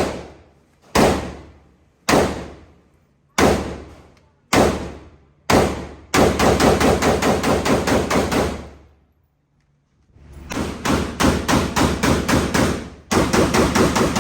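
Gunfire at a shooting range: six single shots about a second apart, each ringing out, then quick strings of rapid shots, broken by a short gap about ten seconds in.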